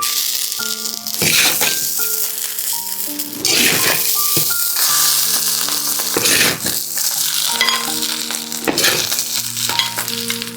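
Food sizzling and frying in a hot pan in irregular surges, over instrumental background music with held notes.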